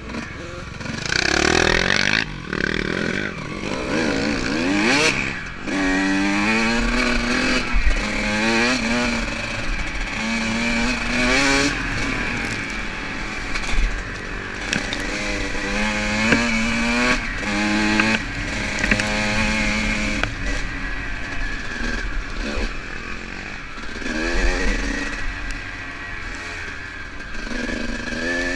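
Dirt bike engine revving hard and shifting up through the gears, its pitch climbing and then dropping at each shift, over and over. Heard close up from the rider's helmet.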